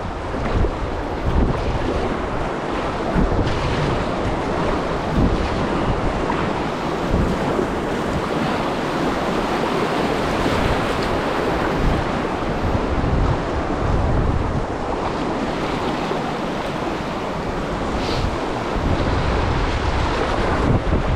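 Rushing water of a glacier-fed river, a steady wash of noise, with wind buffeting the microphone in irregular low gusts.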